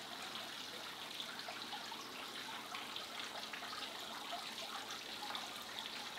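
Faint, steady trickle of running water with small scattered drips.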